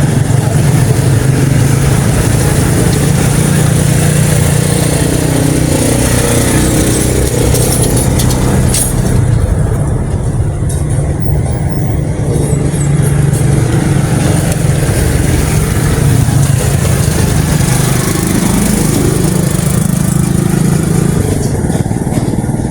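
Road traffic: motor vehicle engines running and passing close by, a steady loud rumble whose engine tones shift slowly in pitch.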